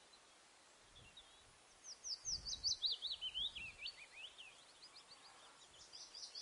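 Songbird singing: after a near-silent first two seconds, a quick run of high chirps that sweep downward, with fainter chirps again near the end.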